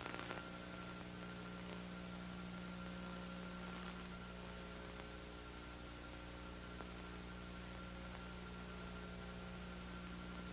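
Faint steady electrical hum with hiss: the background noise of an old recording's soundtrack, with a small click at the very start.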